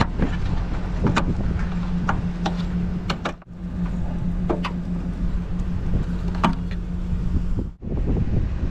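Scattered sharp plastic clicks from hands working a car's license plate lamp and bulb, over steady wind noise on the microphone and a low steady hum. The sound drops out briefly twice.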